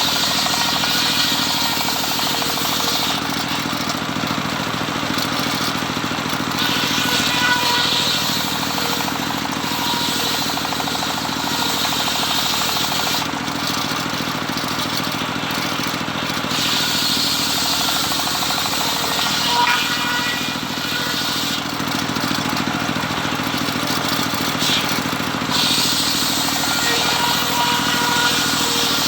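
Homemade circular saw running steadily, its drive giving a constant low hum, with several stretches of a few seconds where a louder, hissing rasp comes in as the blade rips through teak wood.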